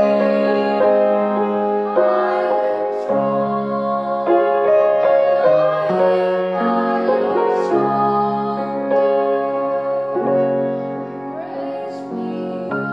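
Grand piano played in sustained chords that change every second or two, with a woman singing a melody over them.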